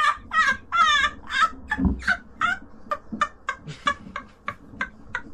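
A man laughing breathlessly in quick high-pitched bursts, about three a second, trailing off and growing fainter, while he lies on the ground after a fall.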